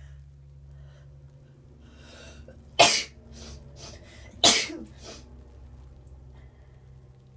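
A woman sneezes twice, about a second and a half apart, each loud sneeze preceded by in-breaths; the sneezes are an allergic reaction, which she puts down to her new bubble bath.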